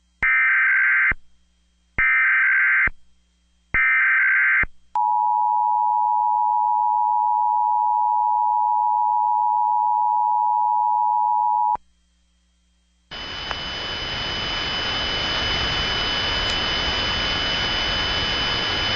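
Emergency Alert System test signal: three one-second bursts of the warbling SAME digital header tones, then the two-tone EAS attention signal held steady for about seven seconds. It stops abruptly, and after a second of silence a steady hiss with thin high whistling tones starts.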